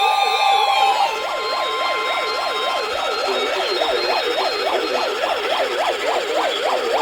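Several weather alert radios sounding their alarms together for a NOAA Weather Radio severe thunderstorm warning. A slow wailing siren and steady high tones stop about a second in. A steady single alert tone holds until about three seconds in, and a fast warbling siren sweeps up and down about three times a second throughout.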